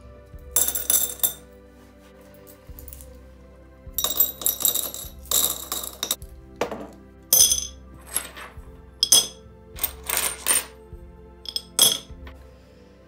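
Pieces of sea glass dropped by hand into a glass jar, clinking and ringing against the glass and each other in a string of short, quick clusters.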